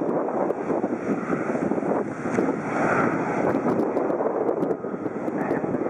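Jet engines of a Boeing 777-300ER running, a steady rushing noise, with wind buffeting the microphone.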